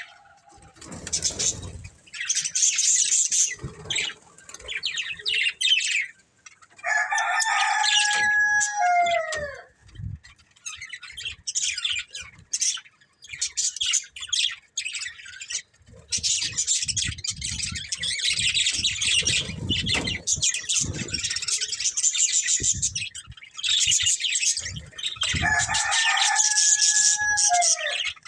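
Budgerigars chattering and warbling in rapid high twitters. Twice, once about a quarter of the way in and once near the end, a rooster crows: a held call of about two seconds that drops in pitch at the end.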